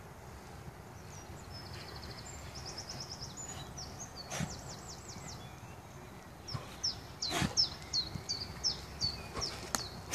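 Small songbirds calling and singing: a fast trill early on, then a run of quick repeated chirps. A few sharp thuds cut through, the loudest right at the end.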